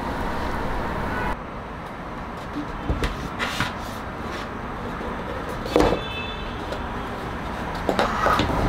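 A steady hiss that cuts off about a second and a half in, then a few light wooden knocks as bamboo steamer baskets are set down on a countertop, the loudest a little past the middle.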